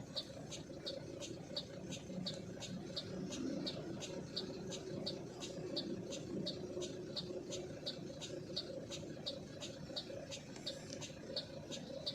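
Low engine rumble inside a truck cab, with a steady, regular high-pitched ticking of about three ticks a second.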